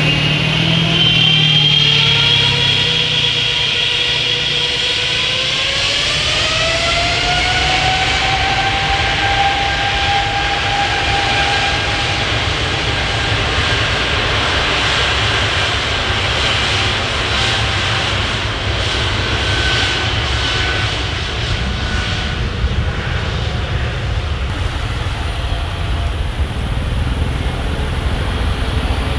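Boeing 777-300ER's GE90-115B turbofans spooling up to takeoff thrust: a whine rises in pitch over the first several seconds, then holds steady over a heavy rumble. In the last third the whine fades and the low rumble carries on.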